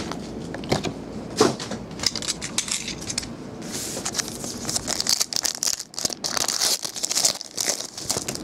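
A stack of trading-card packs knocking lightly on a table a few times, then a card pack's wrapper being torn open, crinkling and rustling from about halfway through.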